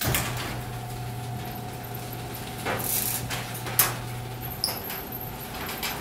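Screw-drive garage door opener running: a steady motor hum with the chatter of the threaded drive, and a few sharp clicks and knocks around the middle as the door travels.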